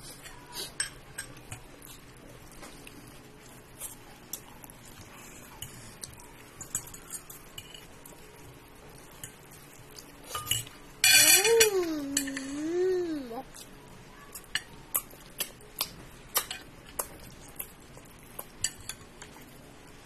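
A spoon clinking and scraping in a ceramic bowl, with scattered light clicks. About halfway through comes a louder wavering, voice-like sound that rises and falls twice over about two seconds.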